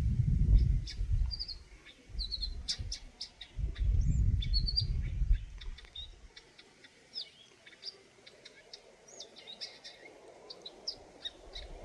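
Eurasian nuthatch calling: many short, high chirps, some sliding in pitch, scattered throughout. Two spells of low rumble in the first half.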